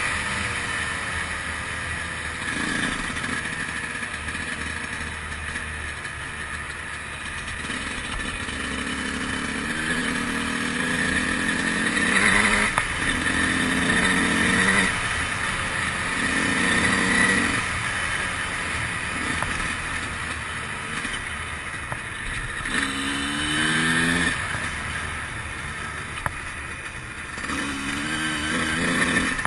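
2003 Honda CR125's two-stroke single-cylinder engine being ridden, the throttle opened and closed in bursts, with quick rising revs twice near the end.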